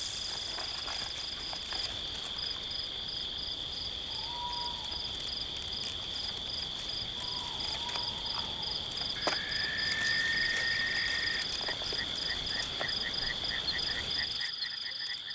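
Night chorus of crickets: a steady high chirring with a faster pulsing trill above it. A few faint whistled calls come through it, with one longer steady whistle about ten seconds in followed by a quick run of pulsed notes.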